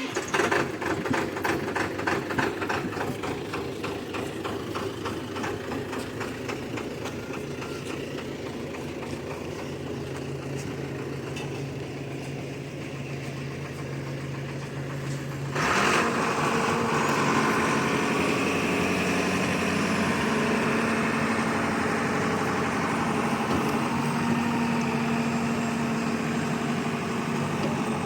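Heavy diesel machine engine running with a rattling knock. About halfway through it suddenly gets louder and settles into a steadier, higher hum.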